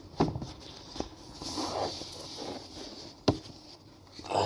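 A playmat being taken out of a collection box: rustling and scraping, with three sharp knocks.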